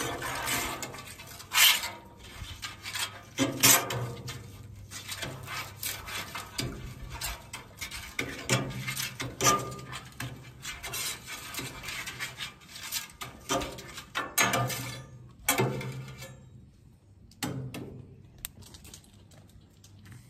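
Metal spatula scraping and sliding across the steel top of a Blackstone 28-inch griddle, spreading cooking oil in repeated uneven strokes, with a short pause about three-quarters of the way through.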